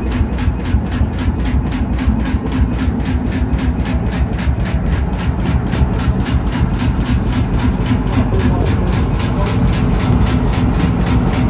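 Large single-cylinder Fairbanks-Morse stationary engine running steadily, deep and low with a rapid, even ticking of about four beats a second.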